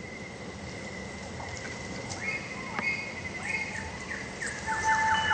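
Outdoor evening ambience fading in: an even hiss with a thin steady high tone, and high whistled calls repeating every half second or so, with a fast run of short chirps near the end.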